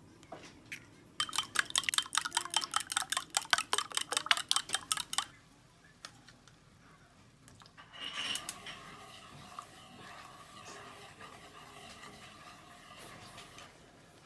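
Kitchen utensil clattering rapidly against a dish, about six clicks a second for some four seconds, as food is beaten or stirred. A quieter steady hiss follows near the end.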